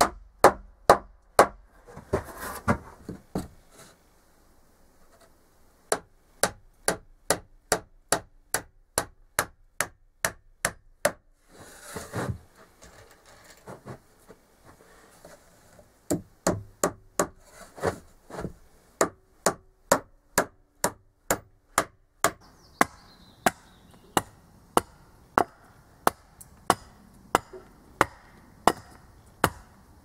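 A hammer striking wood, or nails in wooden planks, in steady runs of about three blows a second with a couple of short pauses. In the last seconds a hatchet chops and splits wood at a similar pace.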